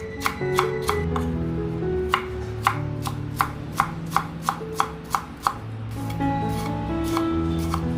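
Kitchen knife chopping food on a cutting board: a run of quick strikes, about three or four a second, that thins out near the end.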